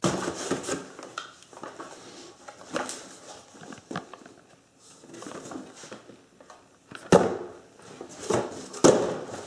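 Handling noises in a small room: light rustling and knocking, with two louder thumps about seven and nine seconds in.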